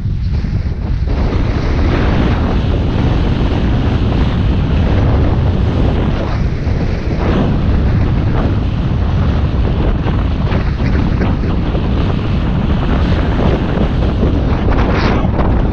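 Wind buffeting the camera's microphone while skiing downhill, a steady low rumble, with the hiss and scrape of skis sliding over snow.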